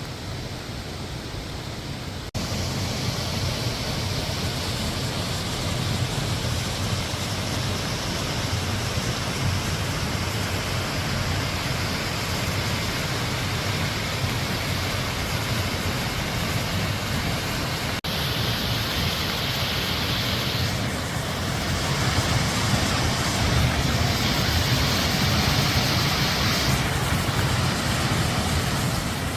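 Waterfall, swollen with rainy-season water, falling in a steady rushing noise. The sound changes abruptly twice, about two seconds in and again past the middle, and is loudest in the last several seconds.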